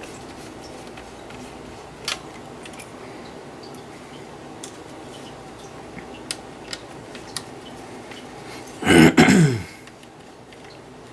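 Small clicks and ticks from unscrewing the fan screws of a graphics card and handling the screws and parts. About nine seconds in there is one louder sound, under a second long, that drops in pitch.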